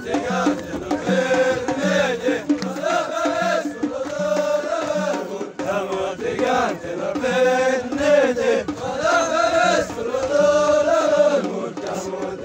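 A group of men chanting together in unison, in short repeated phrases, over a steady beat about twice a second.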